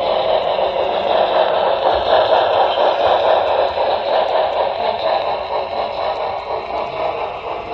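Model train rolling along its track, heard from a camera riding on the train: a steady running noise of the wheels on the rails and the small drive motor.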